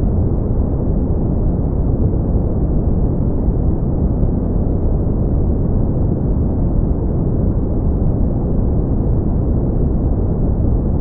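Steady brown noise: an even, deep rumbling hiss with its energy in the low end and little above the midrange, unchanging throughout.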